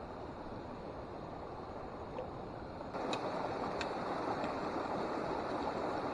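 Mountain stream water rushing steadily, becoming louder and fuller about three seconds in.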